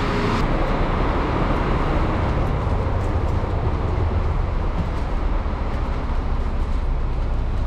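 Coach bus engine idling, a steady low rumble.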